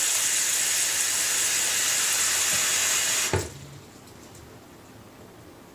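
Bathroom sink faucet running a steady stream of water into the slow-draining sink, then shut off abruptly a little over three seconds in, with a single clunk as it closes.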